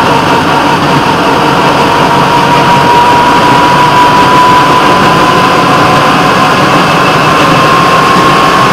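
Engine and running noise of a rail vehicle travelling along the track, steady and loud, with a thin whine that slowly rises in pitch.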